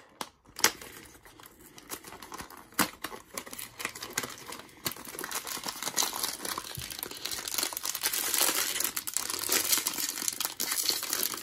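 A small cardboard blind box being handled, with a few sharp clicks and scrapes as its flaps are opened. In the second half, a foil blind bag crinkles dense and loud as it is pulled and torn open.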